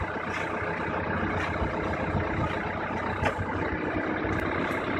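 Komatsu backhoe loader's diesel engine running steadily.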